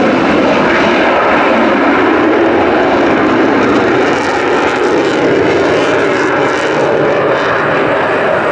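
Loud, steady jet noise from an F-16's Pratt & Whitney F100 turbofan as the fighter flies a display manoeuvre.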